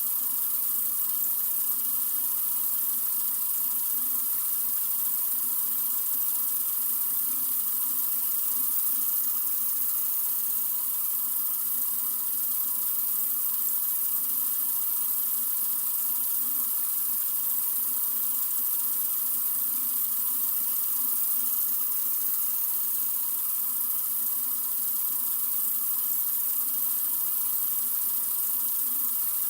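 Sink faucet running in a steady, unbroken stream, a hissy rush of water that does not change.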